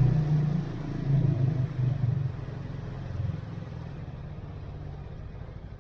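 Benelli Leoncino 250 motorcycle engine running, with two short rises in revs in the first two seconds, then the engine note falls away and grows quieter.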